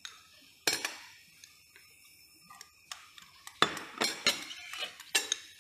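Metal spoon clinking and scraping against a small glass bowl and a stainless steel pressure cooker pot as minced garlic is tipped in: irregular sharp clinks, the loudest about three and a half seconds in.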